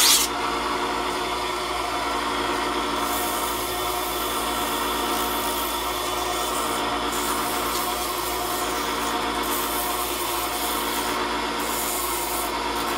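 320-grit sandpaper rubbing against a wooden spinning-wheel bobbin as it turns on a wood lathe, over the steady hum of the lathe's motor. The sanding hiss comes in about three seconds in and comes and goes as the paper is pressed on and eased off. There is a short click right at the start.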